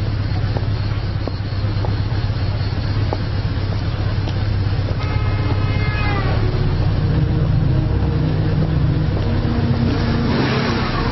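BMW R 1100 GS boxer-twin motorcycle engine running as the bike rides up; its pitch falls about five seconds in as it slows and pulls up, then it idles steadily.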